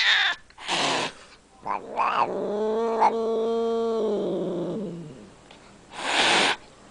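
White Scottish Fold cat hissing and growling as a warning: short hisses early on, a long drawn-out growl lasting a couple of seconds, then a loud hiss near the end.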